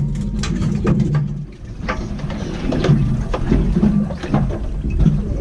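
Wind rumbling on the microphone of a small boat at sea, with water sloshing against the hull and scattered clicks and knocks of gear being handled on deck.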